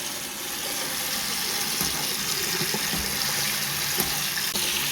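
Bathroom washbasin faucet turned on and running steadily into the sink.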